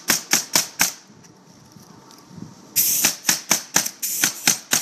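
Pneumatic coil roofing nailer firing nails in quick succession, about four a second, as it fastens a metal drip edge along the roof eave. There is a run of about five shots, then after a pause of about two seconds a longer run of about eight, the second run opening with a short hiss of air.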